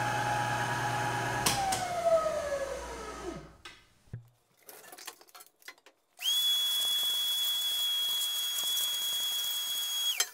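Milling machine spindle motor switched off with a click and winding down, its whine falling steadily in pitch until it stops. After a short quiet with a few light clicks, a steady high-pitched whistle with hiss starts abruptly and runs for about four seconds.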